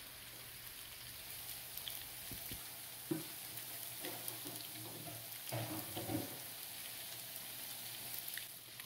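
Blackened redfish fillets sizzling in butter and oil in a cast-iron skillet, a steady, quiet frying hiss.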